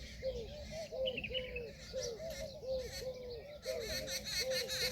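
Peahen (Indian peafowl) giving a steady run of short, low, hooting calls, about two to three a second. Fainter, higher chirps join from about three-quarters of the way in.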